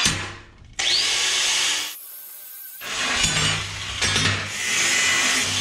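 Angle grinder grinding on lengths of steel tubing to clean them up. It starts about a second in, breaks off briefly near the middle, then runs steadily on.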